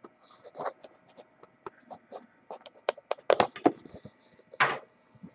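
Hands opening and handling the packaging of a sealed trading-card box: crinkling, scraping and clicking, with a louder burst of crackling from about three to five seconds in.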